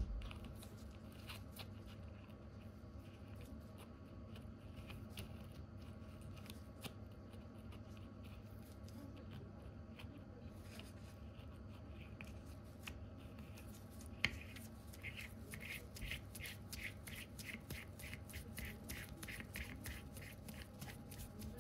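Metal parts of an Auto Chinon 35mm M42 lens being turned and seated by hand: faint scraping and small clicks, one sharper click about two-thirds of the way in, then a run of short, even ticks, about three a second.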